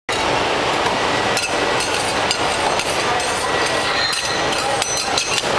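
A metal spatula scraping and clinking against a steel teppanyaki griddle, in a quick irregular series of sharp clicks, over a steady hiss.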